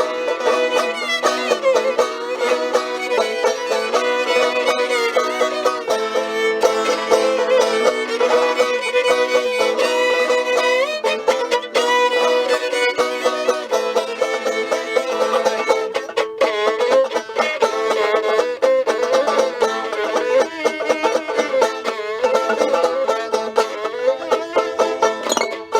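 Fiddle and banjo playing a lively instrumental folk tune.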